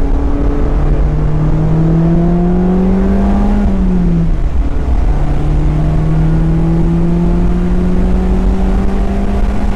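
Mazda Miata's four-cylinder engine pulling under acceleration, its pitch climbing steadily. About four seconds in the pitch drops at a gear change, then it climbs again more slowly in the next gear, over a steady low road rumble.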